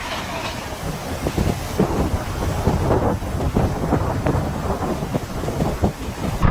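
Floodwater rushing: a loud, rough, continuous noise with constant crackles and knocks.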